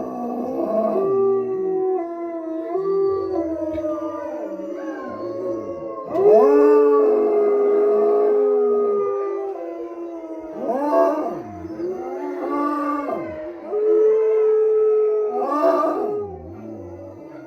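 Wolfdogs howling, with several voices overlapping at different pitches. Long, held notes are broken by quick rising-and-falling yips about 11 and 16 seconds in.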